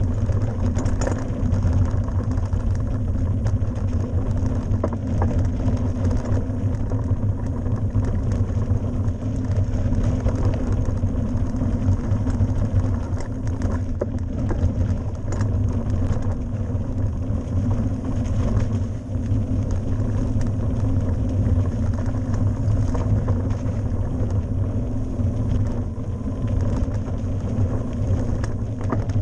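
Mountain bike riding fast down a dirt trail, heard from a camera mounted on the rider or the bike: a steady low rumble of tyres and wind on the microphone, with scattered clicks and rattles from the bike over bumps.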